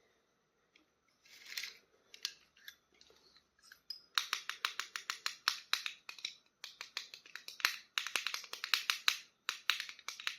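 Plastic toy packaging being handled and opened: a few soft rustles, then from about four seconds in a dense, rapid run of crackles and clicks.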